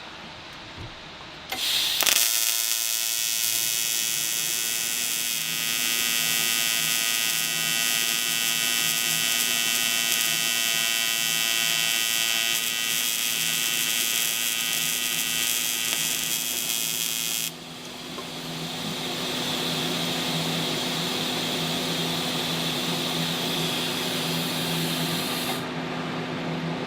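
AC TIG welding arc on aluminum from an Everlast 210EXT welder set to 125 Hz AC frequency: a steady, harsh electrical buzz that strikes about two seconds in. Past the middle the buzz drops in level and turns softer, and near the end the arc cuts off, leaving a low steady hum.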